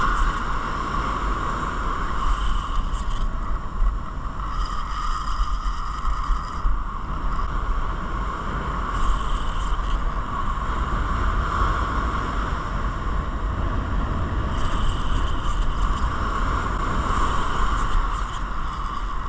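Wind buffeting the microphone over surf breaking on a beach, a steady rushing noise. A higher whirring comes and goes four times over it.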